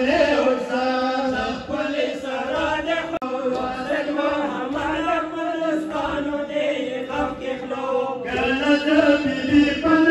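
Men's voices chanting a noha, a Shia mourning lament, in a loud continuous recitation through a microphone. A steady low held tone runs beneath the chant.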